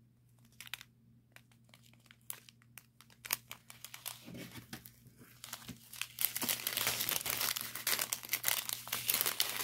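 Small zip-lock plastic bags of diamond-painting drills crinkling as they are handled. At first there are scattered light clicks, then steady crinkling from about six seconds in.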